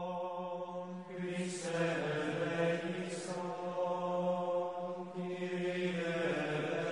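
Background music: a slow vocal chant of long held notes over a steady low drone.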